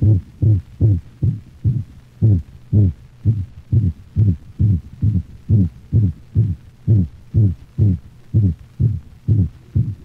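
A dog's heartbeat, a little over two beats a second, each beat carrying a musical, whistling murmur that falls in pitch. This is a systolic whoop, or seagull murmur, a variation of the holosystolic murmur of atrioventricular valve insufficiency.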